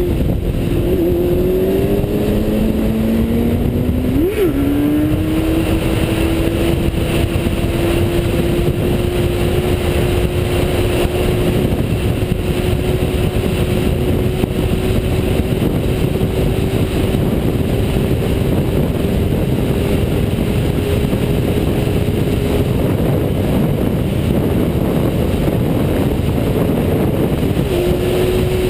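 Suzuki GSX-R750 sport bike's inline-four engine pulling up through the revs for the first few seconds, with a quick blip about four seconds in. It then holds a steady pitch for a long stretch before sinking under heavy wind rush on the helmet microphone.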